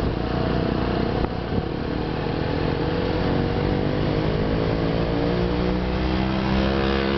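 Small motorcycle engine running under way, its pitch climbing steadily as it accelerates along the road.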